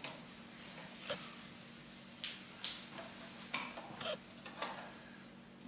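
A scattering of light metallic clicks and taps from the metal cover plate of a five-point lock case being pressed and worked into place; it will not seat because a part inside is out of line.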